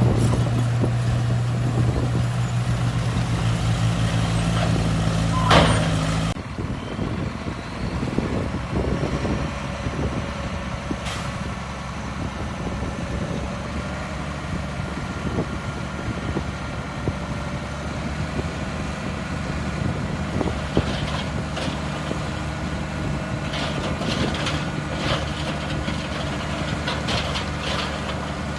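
Heavy diesel earthmoving machinery running steadily, louder for the first six seconds. It drops off abruptly, then carries on lower with scattered metallic knocks near the end. A short sharp burst comes about five and a half seconds in.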